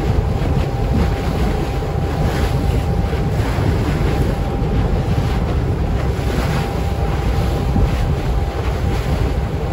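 Wind buffeting the microphone on a tender boat under way, over the rush of water along the hull and the steady drone of its engine with a faint steady whine.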